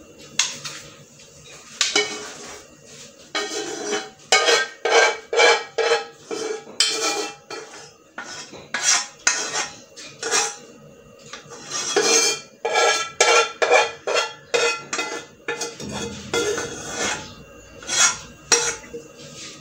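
A metal spoon repeatedly scraping and clinking against a saucepan and a glass baking dish as thick béchamel sauce is scraped out of the pan and spread.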